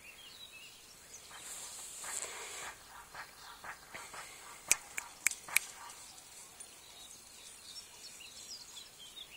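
Rustling through tall meadow grass, then four sharp clicks about a third of a second apart near the middle. Small birds chirp faintly in the background.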